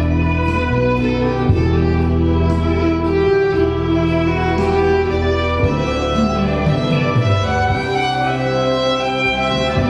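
Violin playing a melody of long held notes over a sustained low accompaniment, with a light steady beat ticking about twice a second.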